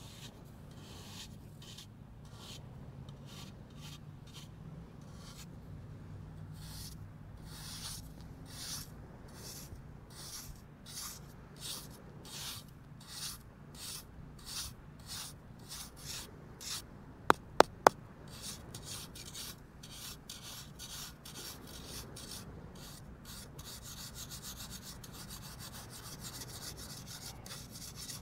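A flat hand tool scraping a wall of packed, damp sand, shaving it flat and smooth. It goes in repeated strokes that come quicker and quicker, becoming rapid, near-continuous scraping near the end. Three sharp clicks in quick succession, the loudest sounds, come about two-thirds of the way through.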